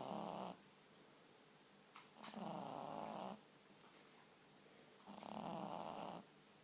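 Pug puppy snoring in its sleep, one snore about every three seconds. A snore ends about half a second in, then two more follow, each lasting about a second.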